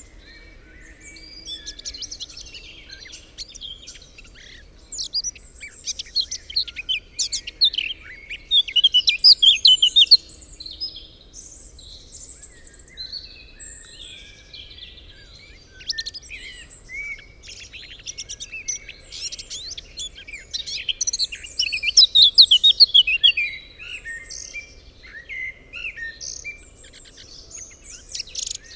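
Several small songbirds singing and chirping over one another, with louder runs of rapid trills about a third of the way in and again about three quarters of the way through.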